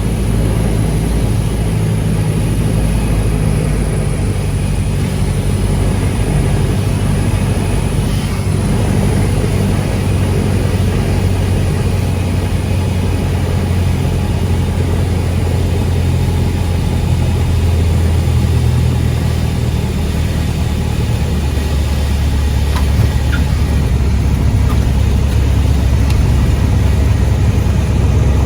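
Cessna 172's piston engine and propeller droning steadily, with no change in power.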